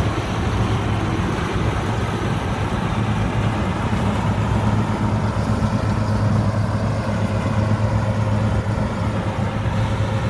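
Kubota DC60 combine harvester running steadily, its diesel engine holding a constant hum with no revving, over the rattle of the machine working.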